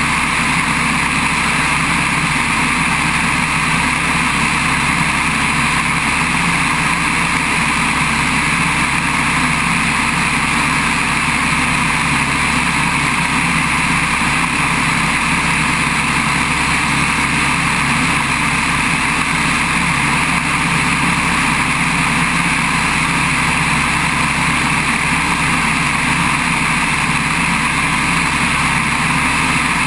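Open-cockpit biplane in level cruise flight: a steady engine drone mixed with rushing wind, holding an even level throughout.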